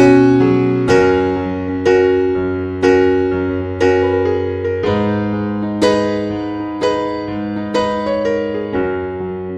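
Slow, gentle piano music: a note or chord struck about once a second and left to ring and fade, over held bass notes that change twice.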